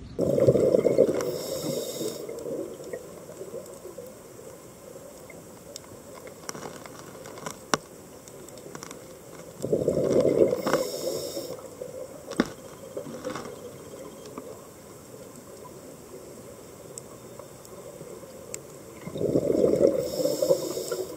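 Underwater recording of a scuba diver breathing: three loud rushes of exhaled bubbles about ten seconds apart, with a quieter steady water hiss and faint scattered clicks between them.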